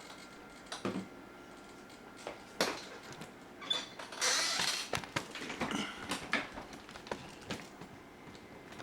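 Small clicks, knocks and creaks from handling the RC helicopter's swashplate and its linkages, with a brief rasping burst about four seconds in.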